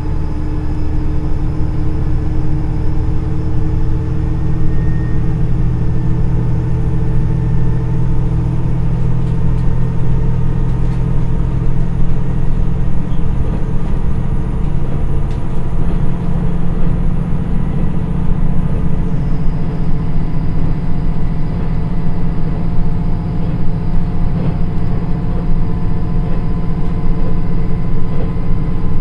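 Cabin sound of a KiHa 110 diesel railcar running at speed: the Niigata DMF13HZA turbocharged diesel engine drones steadily in second direct-drive gear over the running noise of the train. The engine note shifts about two-thirds of the way in.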